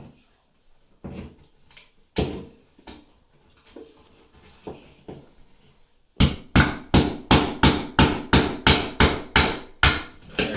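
Hand hammer tapping wall anchors through a wooden block into drywall: a few scattered taps, then from about six seconds in a quick even run of hammer blows, about four a second.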